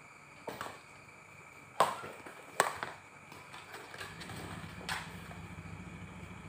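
Badminton rackets striking a shuttlecock in a rally: four sharp hits, the second and third loudest. A low steady rumble comes in about four seconds in.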